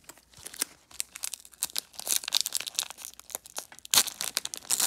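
A sealed 1999 Bowman baseball-card pack's wrapper being crinkled and torn open by hand: a continuous run of sharp crackles, loudest about four seconds in.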